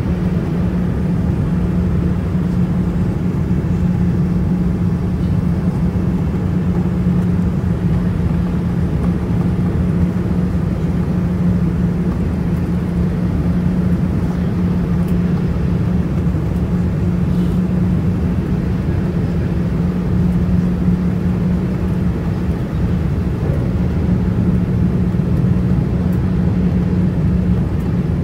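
Steady cabin noise inside a Boeing 787-9 jet airliner: engine and airflow rush with a constant low drone that holds an even level.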